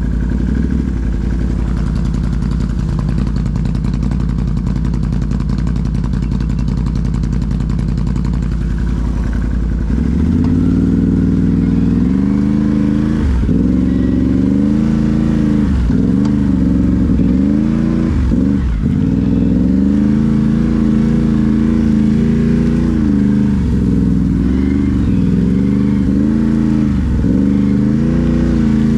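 Can-Am Renegade 1000 ATV's V-twin engine idling steadily. From about ten seconds in, the throttle is opened and eased off again and again, so the engine note rises and falls repeatedly.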